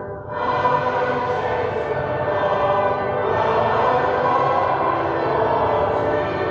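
Sacred choral music: voices singing held chords, a hymn-like texture. A brief break right at the start, then the singing comes back in and carries on steadily.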